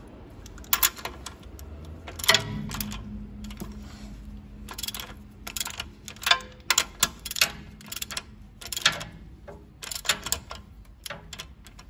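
A ratchet wrench clicking in short, irregular runs, with the metal socket clinking, as a 17 mm socket tightens a knuckle-arm stud nut a little at a time.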